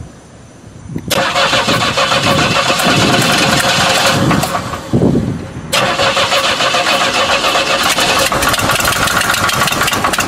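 A 1967 Buick Riviera's 430 V8 being cranked on its starter in two long bursts, the first cutting in about a second in and the second just past the middle, each starting and stopping abruptly. The engine has blown and cranks badly; the mechanic takes it for a bottom-end fault, likely a spun bearing.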